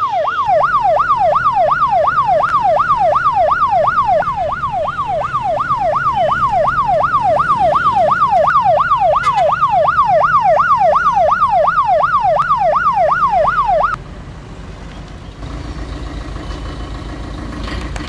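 Ambulance siren wailing in quick up-and-down sweeps, about two and a half a second. It cuts off abruptly near the end, leaving a low engine rumble.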